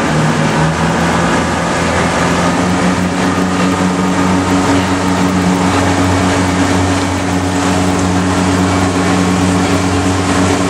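A tour boat's engine running steadily at cruising speed, a low drone that settles at a slightly higher pitch just at the start, under a continuous rush of wind and water.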